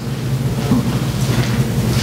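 Steady low rumble with a hiss over it.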